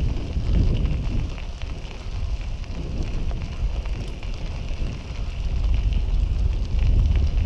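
Wind rushing over the microphone of a bicycle riding along a paved trail, with tyre noise on the pavement; a steady, fluttering noise that swells and dips.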